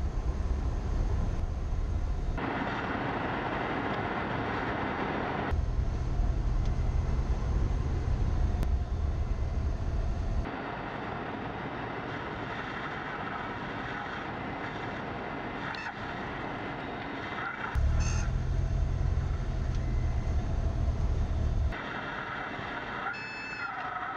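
Cessna 172M cockpit noise: the four-cylinder Lycoming engine and propeller running, with airflow noise. Heavy low rumble comes and goes in spells of a few seconds, and a wavering whistle-like tone starts near the end.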